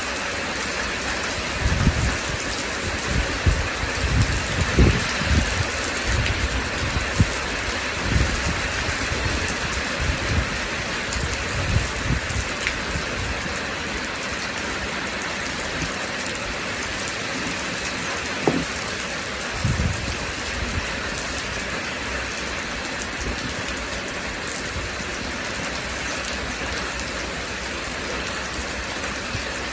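Steady rain falling, with short low thuds now and then, most of them in the first half.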